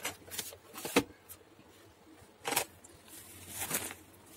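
Sharp clicks and knocks of a plastic cargo drum's metal locking ring and lid being handled, twice in the first second or so, then swishes and rustling as packed clothes and goods are moved about inside the drum.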